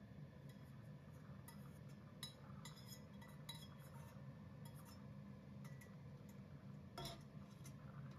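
Faint scattered clinks and knocks of stainless-steel cookware being handled and set down on a gas hob's metal grates. The loudest knock comes about seven seconds in, over a low steady hum.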